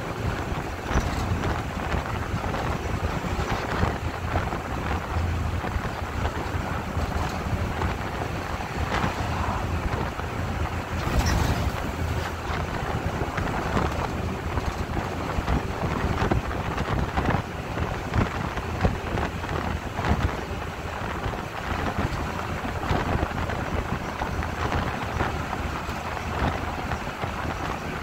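Bus in motion at road speed, heard from inside: a steady low engine and tyre rumble with wind noise, and scattered knocks and rattles from the body.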